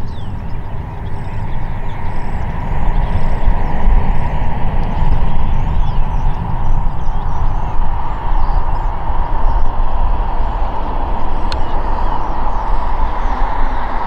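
Airbus A330-200 airliner with General Electric CF6 engines on final approach, its jet engine noise slowly growing louder as it nears. Heavy, uneven wind rumble on the microphone underneath.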